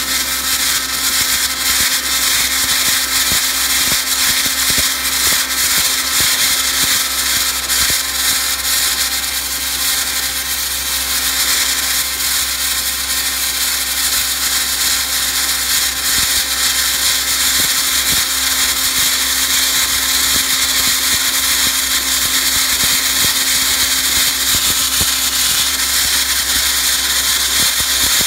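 Wet abrasive blasting nozzle spraying a water-and-grit stream onto a concrete floor, giving a loud, steady hiss with a steady hum underneath.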